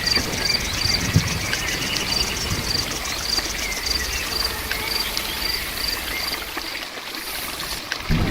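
Steady rain with a cricket chirping in an even rhythm, about two chirps a second; the chirping stops a little before the end.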